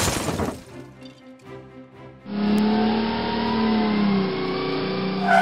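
A cartoon crash sound effect dying away in the first half-second, then, over background music, a car engine sound effect running steadily from a little past two seconds in.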